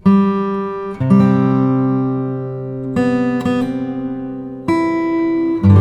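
Music: an acoustic guitar strumming chords, with a new chord struck every second or two and left to ring.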